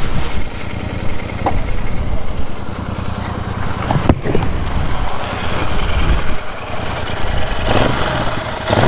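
Royal Enfield Super Meteor 650's 648 cc parallel-twin engine idling steadily, with a sharp click about four seconds in.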